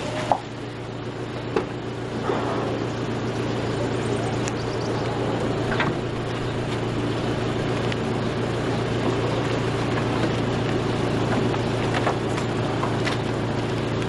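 Minibus engine idling steadily, with a few short light knocks, likely from the sliding door and from passengers getting in.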